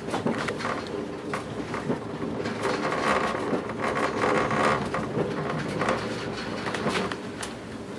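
Pesa Dart electric multiple unit heard from inside the carriage while running: a steady rolling rumble of wheels on rails, with frequent short clicks and rattles.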